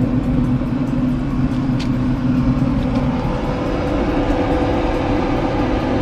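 Pit Boss Classic pellet smoker running, its combustion fan giving a steady hum over a low rumble.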